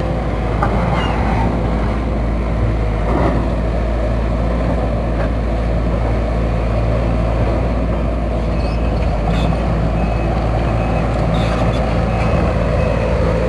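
Case CX210B excavator's diesel engine and hydraulic main pump running steadily; the freshly overhauled pump makes no growling noise. A repeated high beep joins in about two-thirds of the way through.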